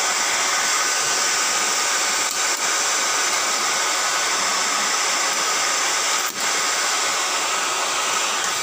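Handheld hair dryer blowing steadily, heating an LED backlight strip to loosen it for removal. The airflow dips briefly three times.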